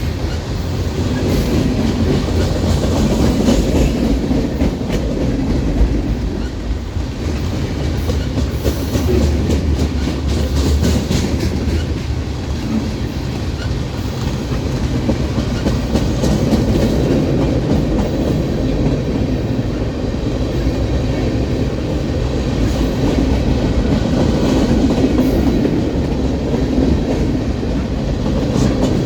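Freight train cars rolling past at close range: a steady rumble, with the wheels clicking over the rail joints.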